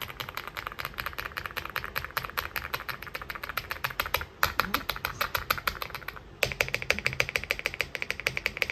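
Fast, continuous typing on an Aula F75 mechanical keyboard with Leobog Star Vector linear switches: a dense stream of keystroke clacks. There are brief pauses about four and six seconds in, and the clacks sound brighter after the second pause.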